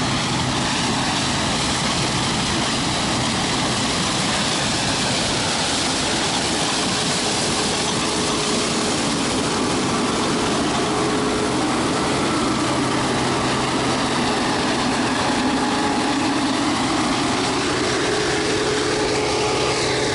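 Case IH 2166 Axial-Flow combine harvesting corn at close range: its diesel engine and threshing machinery run steadily and loudly, a dense mechanical din with a steady low hum and a higher steady whine in it.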